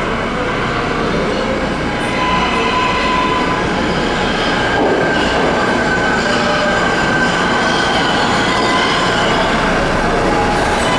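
New York City subway train running on the tracks: steady wheel-on-rail noise with several high tones held over it, a little louder from about two seconds in.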